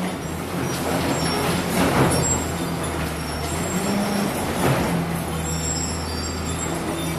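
Fiat Kobelko FL145 tracked loader's diesel engine running steadily while it loads broken concrete into a steel tipper body. There is a louder clatter of rubble about two seconds in and again near five seconds.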